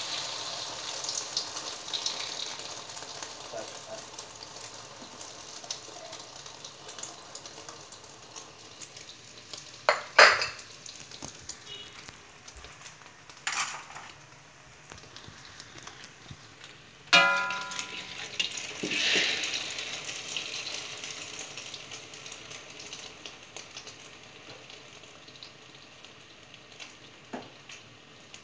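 Beaten egg sizzling in hot oil in a wok, loudest at the start and slowly fading. A few sharp knocks and clanks break in; the loudest, about two-thirds of the way through, rings briefly and is followed by a fresh swell of sizzling.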